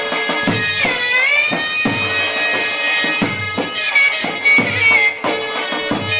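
Egyptian folk music: a mizmar reed pipe plays a loud, held melody that dips in pitch about a second in and then holds, over regular drum beats.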